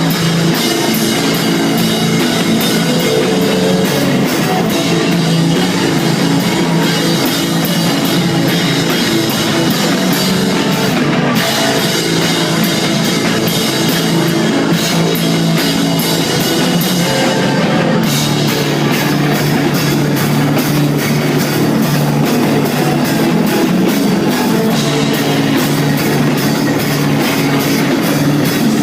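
Rock band playing live at full volume: electric guitar and bass over fast, busy drum-kit playing with many cymbal hits.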